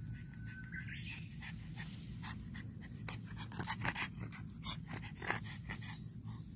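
A pug panting and sniffing close to the microphone, a run of short quick breaths loudest in the middle.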